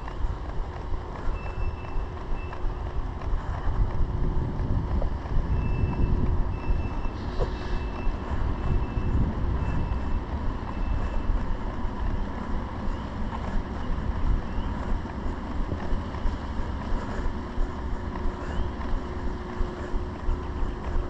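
Traffic rumble with wind buffeting the microphone, and a vehicle's reversing beeper sounding short high beeps about once a second through the first half. Regular footfalls about twice a second.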